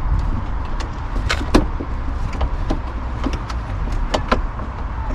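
Irregular clicks and knocks of plastic and metal parts as the door lock assembly of a Volkswagen Golf Mk5 rear door is worked loose and pulled up out of the door, over a steady low rumble.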